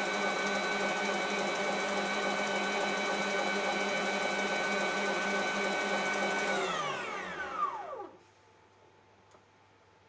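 Electric mixer running steadily at speed while beating egg whites and sugar into meringue, then switched off about two-thirds of the way in, its motor whine sliding down in pitch as it spins to a stop.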